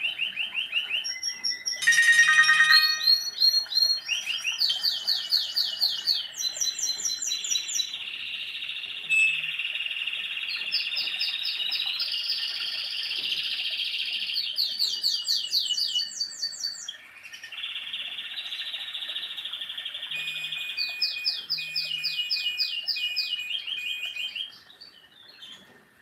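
Nokia 101 ringtones and message-alert tones playing through the phone's small loudspeaker as each one is previewed in the menu: fast trains of high, chirping electronic beeps, with a few longer held tones in between, stopping near the end.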